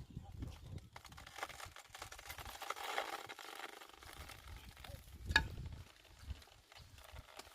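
Crackly rustling of banana leaves and stalk as a banana bunch is cut from the plant, with one sharp chop or snap about five seconds in. Wind buffets the microphone.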